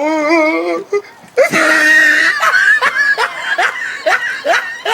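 People laughing and exclaiming: a drawn-out wavering vocal cry, then a loud shout, then a quick run of short rising laughs.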